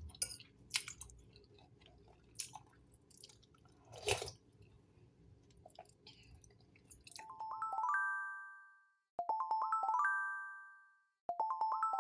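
Faint scattered clicks and a short louder rustle about four seconds in, then a bright chime tune starts: a quick rising run of ringing notes that repeats about every two seconds.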